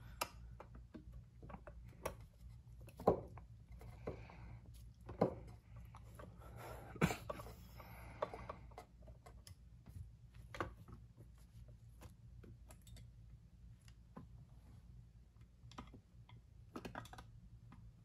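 Small screwdriver backing screws out of a die-cast metal model-train tender chassis: faint scattered clicks, taps and short scrapes, with a few louder knocks as the metal parts are handled.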